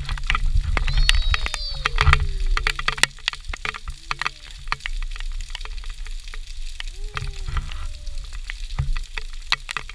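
Steady rain pattering, with many close raindrops ticking sharply near the microphone. A toddler's voice gives two short calls that fall in pitch, about a second in and again about seven seconds in.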